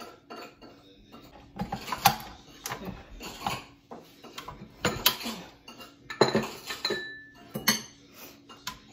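Butter knife clinking and scraping against the steel bowl of a KitchenAid stand mixer as butter is sliced into it, then the flat beater knocking and clicking as it is fitted onto the mixer head. Irregular separate clinks and knocks, several of them sharp and loud.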